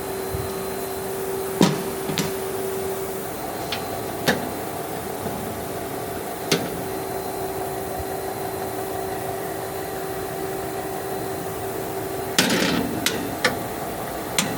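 Steady hum of a powered-up Hardinge GS-51 CNC turning center, with a constant tone, broken by sharp clicks and knocks now and then and several in quick succession near the end.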